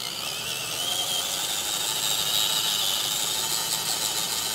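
RC scale crawler's electric motor and gear drivetrain whining steadily as it climbs a steep dirt slope under load.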